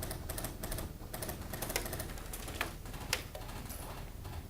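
Airsoft gunfire exchange: clusters of sharp clicks and cracks at an irregular pace.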